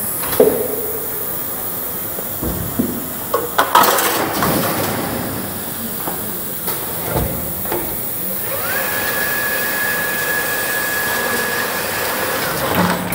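FROMM automatic steel-strapping head with its paper-placement unit working: a steady hiss with several sharp clunks in the first few seconds. About two-thirds of the way through, a steady motor whine rises in, holds for about four seconds, then drops away.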